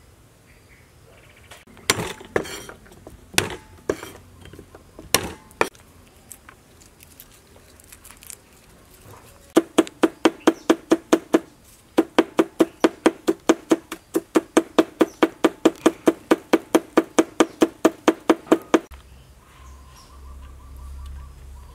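A knife chopping quickly and evenly on a cutting board, about four strokes a second, each stroke with a short ringing knock. A few single knocks come before it.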